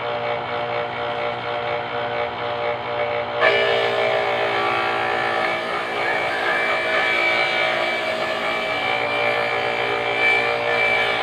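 Small electric motor of a portable root-crop grater running with a steady whine. About three and a half seconds in, a piece of root is pressed against the spinning grater and a higher grinding noise joins the motor sound.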